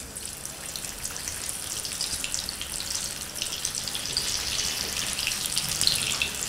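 Maida-coated chicken drumsticks frying in hot oil in a small pan: a steady sizzle with crackling that grows louder as the second piece goes in.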